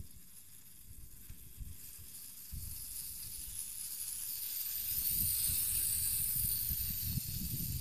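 Wind buffeting the microphone in gusts, with the high-pitched hiss of a WL Toys V959 mini quadcopter's motors and propellers growing louder from about halfway.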